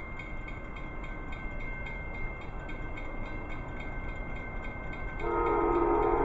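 Low rumble of an approaching train, then about five seconds in an Amtrak locomotive's horn sounds, a steady chord of several tones.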